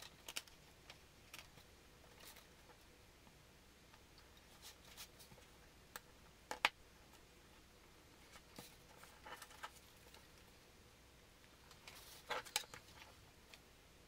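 A hobby knife cutting paper along a plastic ruler on a board, with light scrapes and clicks as the knife, ruler and paper are handled and moved. One sharper tap comes a little past halfway, and a small cluster of scrapes comes near the end.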